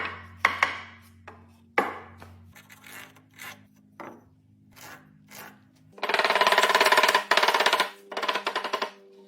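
Woodworking tool sounds over background music: a few sharp knocks at the start, then, past the midpoint, about three seconds of loud, fast, dense rasping.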